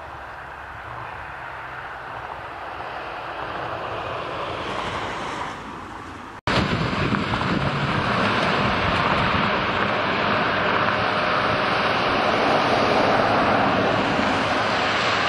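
Outdoor roadside noise that swells over the first few seconds. After an abrupt cut it becomes a loud, steady rush of wind on the microphone.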